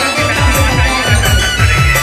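Music with a fast electronic beat: deep drum hits that drop in pitch, about four a second, under a sustained melody.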